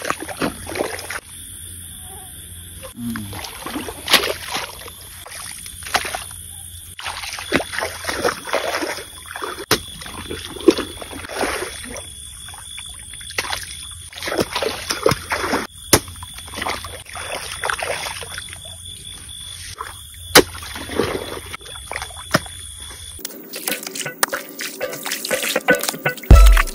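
A long-handled hoe chopping and scraping into wet mud at an irrigation channel's bank, in irregular strokes, with water trickling and splashing. About three seconds before the end, music starts, with a heavy, regular beat.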